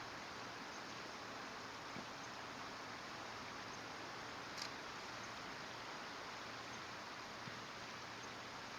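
Faint, steady outdoor background hiss, with one short high-pitched chirp about halfway through.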